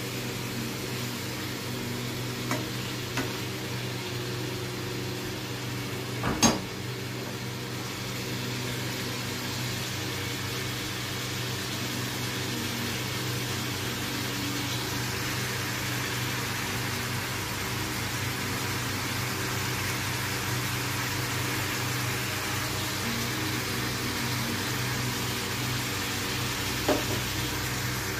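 Chicken pieces sizzling in oil and juices in a nonstick frying pan, a steady hiss over a steady low hum. A spatula knocks against the pan a few times in the first seconds, loudest about six seconds in, and once more near the end.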